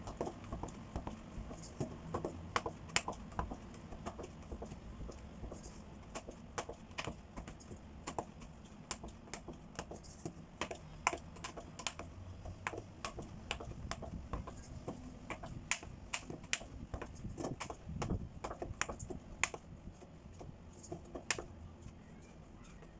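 Hands kneading stiff flour dough in a stainless steel mixing bowl: irregular light clicks and taps of hands and dough against the metal bowl, several a second.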